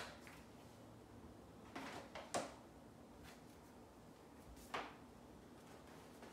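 Near-silent room with a few brief, light knocks and clicks of wands and their boxes being handled: three close together about two seconds in, and one more near five seconds.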